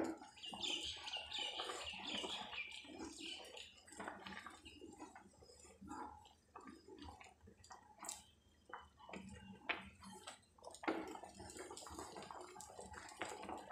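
Spatula stirring thick barley-and-milk porridge in a wok (kadhai): irregular soft scrapes and sticky, wet clicks as it drags through the simmering mixture.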